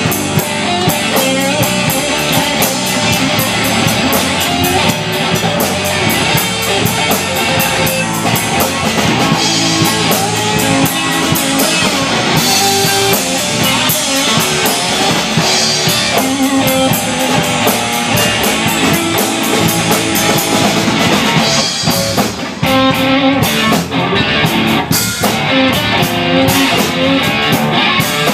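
Blues band playing live with no vocals: resonator guitar lines over a drum kit and bass guitar.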